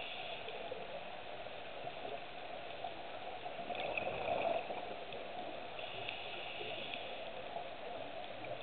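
Underwater sound heard through a dive camera's housing: a steady, muffled watery hiss, with a scuba diver's regulator breathing and bubbles coming and going. The bubbling swells briefly about four seconds in.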